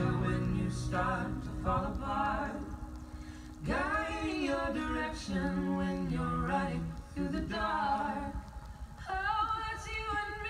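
A singer's voice carrying a slow melody with long, sliding notes over sparse accompaniment; the fuller guitar backing comes back in at the very end.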